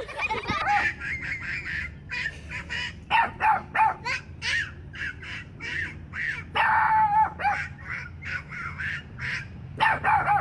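A Boston Terrier barking in a long run of short, high yaps, several a second at times, with one longer held call about two-thirds of the way through.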